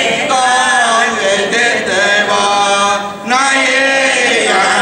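A group of voices chanting a devotional hymn together, with a short break for breath a little past three seconds in.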